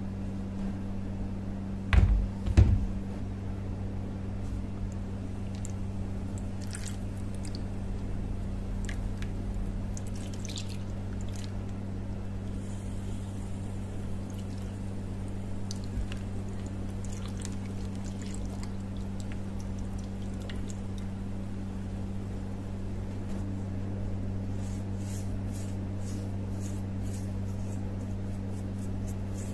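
Two knocks on a plastic tray, then motor oil poured from a plastic jug over a rusty hammer head lying in the tray, trickling and dripping. Near the end, quick light strokes of a paintbrush dabbing the oil over the head.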